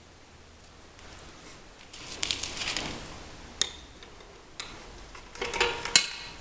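Metal scrapes and sharp clicks from working a tight, O-ring-sealed cap out of a Troy-Bilt tiller transmission by hand. There is a scraping stretch partway through, and a louder cluster of scrapes ending in a sharp click near the end.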